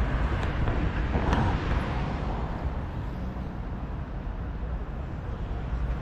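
City road traffic: cars running along a multi-lane street in a steady noisy hum, a little louder about a second in.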